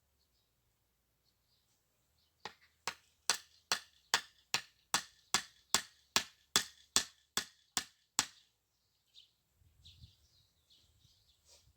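A quick, even run of about fifteen sharp knocks, some two and a half a second, as from something hard being struck over and over, ending suddenly a little past halfway. Faint bird chirps follow.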